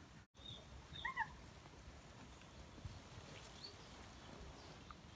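Quiet outdoor background with one faint, short two-part animal call about a second in, and a few fainter high chirps later on.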